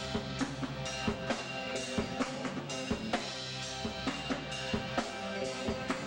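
Live band playing, with the drum kit keeping a steady beat of snare and bass drum hits over sustained pitched instruments.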